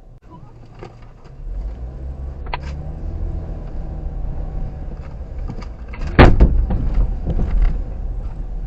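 A low engine hum running steadily, coming up about a second and a half in, with a loud clatter of sharp knocks about six seconds in.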